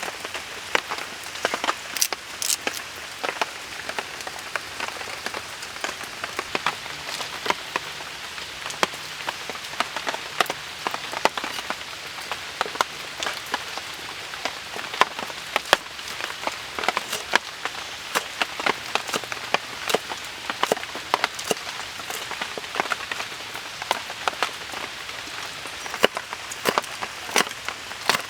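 Food sizzling in hot oil: a steady frying hiss with frequent sharp crackles and pops.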